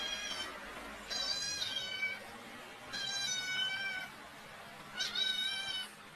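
Domestic cat meowing repeatedly, one drawn-out meow about every two seconds.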